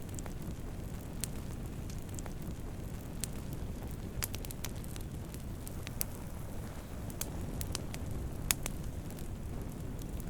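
Wood campfire burning with a steady low rumble of flames and frequent sharp, irregular crackles and pops, a few louder snaps among them.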